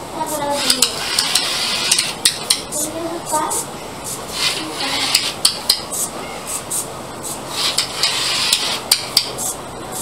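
Small plastic robot car with DC gear motors running on a tile floor: irregular clattering clicks throughout, with a motor whine that slides down in pitch near the start and rises and falls again around the middle as the car stops and turns.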